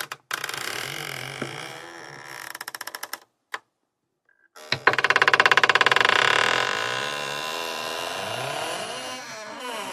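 Creaking door hinge: a slow rasping creak that stops about three seconds in, a single click, a moment of silence, then a knock and a second, louder, long creak of rapid rasping that wavers up and down in pitch.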